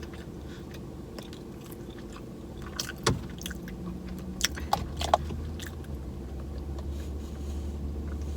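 A person eating on camera: chewing, with a few sharp clicks and scrapes of a spoon and cup. A low steady hum sits underneath and grows stronger about halfway through.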